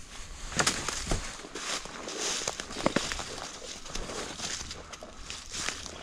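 Dry cut branches and brush rustling and crackling as they are dragged over the ground and thrown onto a brush pile, with several sharp twig snaps and footsteps.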